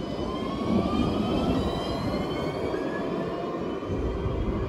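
Alstom Citadis 305 tram pulling away, its traction motors whining in a steadily rising pitch as it accelerates, over a low running rumble.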